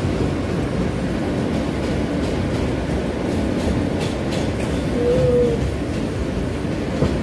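New York City subway J train running on elevated track, heard from inside the car: a steady rumble of wheels on rails. A few clicks come near the middle, and a brief whine about five seconds in.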